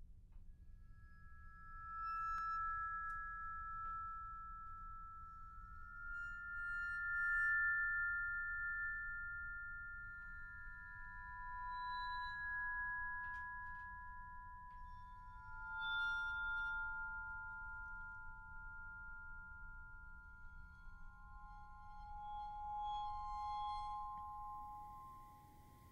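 Slow vibraphone music: a few high notes at a time, each struck softly and left ringing for several seconds, overlapping the next.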